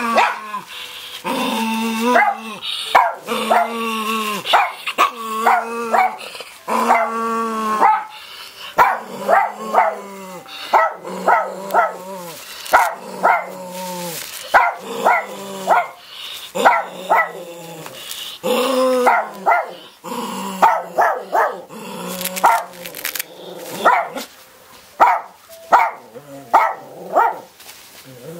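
A dog barking and whining over and over: several drawn-out whining calls in the first few seconds, then a long run of short barks, often two or three in quick succession, with a longer whine now and then between them.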